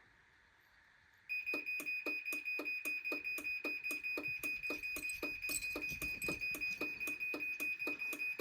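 Chamberlain B353 garage door opener sounding its timer-to-close warning. A high beeping with a rapid even pulsing, about four pulses a second, starts a little over a second in. This is the alert that the door is about to close by itself.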